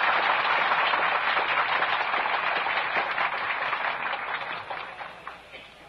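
Crowd applauding, dying away over the last two seconds.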